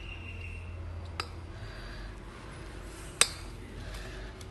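A spatula stirring dry flour and spices into a little water in a metal bowl, with soft scraping and two sharp clinks against the bowl, about a second in and, louder, about three seconds in.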